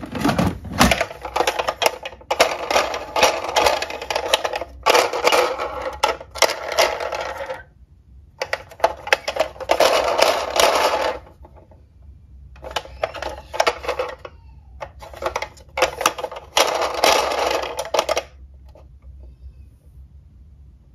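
Hard plastic toy cars clattering and knocking against each other in a cardboard box as a hand rummages through them, in several bursts of rapid clicking with short pauses, dying down near the end.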